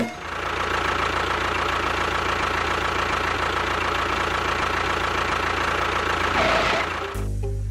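Engine running steadily, with a low hum under a constant high whine, cutting off suddenly about seven seconds in.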